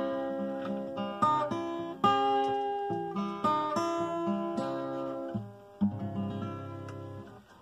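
Solo acoustic guitar playing the closing bars of a folk song: a run of picked notes and chords, ending in a last low chord that rings and fades away near the end.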